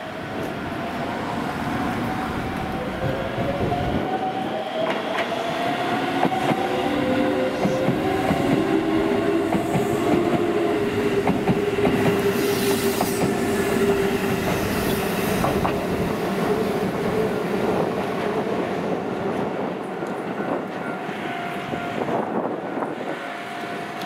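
A Keisei commuter electric train passing close by at low speed. Its wheels click over the rail joints, and a whine slowly shifts in pitch as it builds to a peak and fades.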